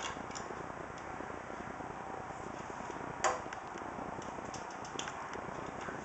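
Hand screwdriver turning screws through a case fan's frame into a computer case's metal mounting plate: faint scattered metallic ticks and scrapes, with one sharper click about three seconds in, over a steady hiss.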